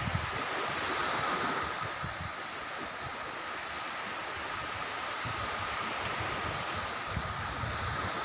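Small waves washing onto a sandy beach as a steady hiss, with gusts of wind buffeting the microphone in low rumbles now and then. A faint, thin steady high tone sits under it.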